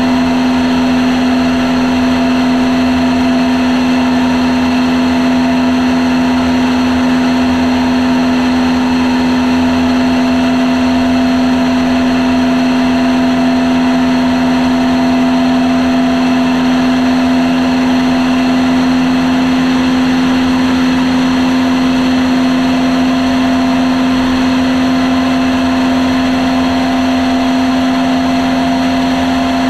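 Small propeller aircraft's engine and propeller running steadily at constant power: a loud, even drone with one strong unchanging pitch and a rough low rushing noise beneath it.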